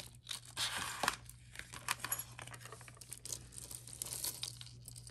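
Bag of mixed jewelry being rummaged by hand: crinkling of the bag with small clicks and clinks, busiest in the first second or so and then sparser.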